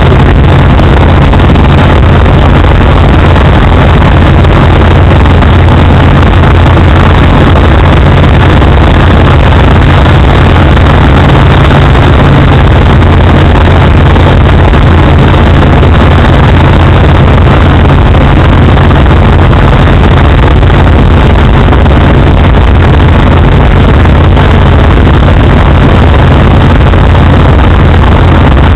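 Eurostar ultralight aircraft's engine and propeller running steadily in flight, heard from inside the cockpit as a loud, unchanging drone.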